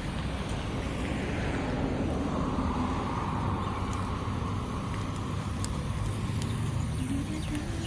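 A car drives past on the road. Its tyre and engine noise swells about two seconds in and slowly fades, over a steady low traffic rumble.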